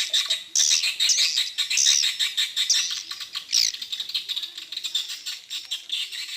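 Many small birds twittering together in rapid, overlapping high chirps, with a single sharp click a little past halfway; the chirping thins and fades toward the end.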